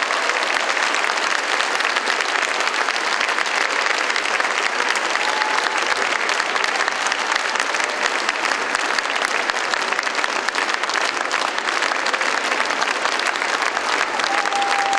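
A large concert audience applauding steadily, with no let-up.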